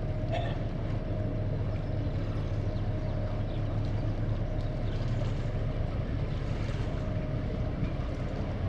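Steady low drone of a passing inland motor cargo ship's diesel engine, with a faint steady higher tone over it.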